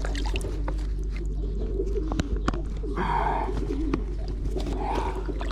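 Pigeons cooing steadily in the loft, a dense low warbling with scattered small clicks and a brief rustling burst about three seconds in.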